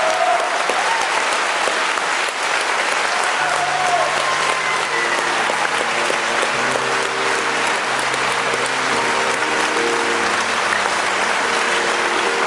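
Concert hall audience applauding, with steady held chords from the band coming in under the clapping about three and a half seconds in.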